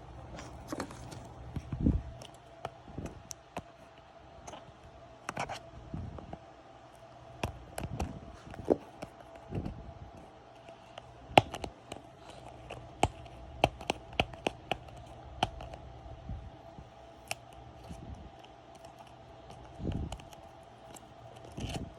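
Irregular sharp clicks, taps and rustles of a toy package being opened by hand, its tape being worked off, with a few dull thumps of handling.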